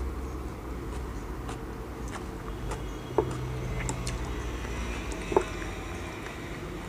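Close-miked eating sounds of chewing, with two sharp clicks about two seconds apart as wooden chopsticks knock against a ceramic side dish while picking up kimchi.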